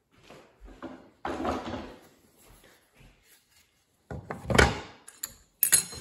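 Thin wooden strips being handled on a table-saw top: a short scraping slide about a second in, then a loud wooden knock and clatter around four and a half seconds and another sharp knock just before the end.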